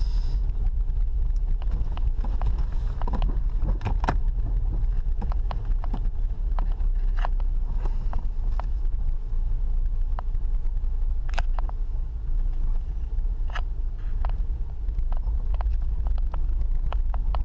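Car driving slowly along a dirt track, heard from inside the cabin: a steady low engine and road rumble, with scattered sharp clicks and knocks at irregular moments.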